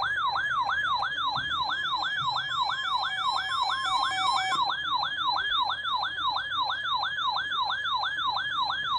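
Electronic siren-style alert tone, a loud rapid warble sweeping up and down about three times a second. It serves as the attention signal of an Emergency Alert System broadcast, coming between the data header and a spoken flash flood warning.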